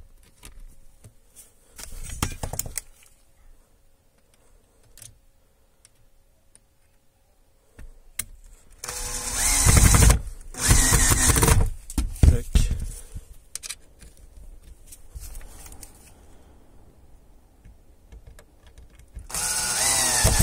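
Hitachi cordless drill-driver driving screws through a metal drywall ceiling hanger into a wooden truss, its motor whining up in two short runs about nine and eleven seconds in and a third starting near the end. A brief rustle of handling about two seconds in.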